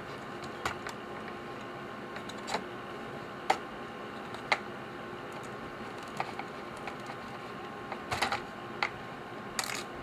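Light, irregular clicks and taps of small plastic and metal parts as hands pry the antennas and their springs off an opened Mac Mini's internal frame, about ten in all, over a faint steady hum.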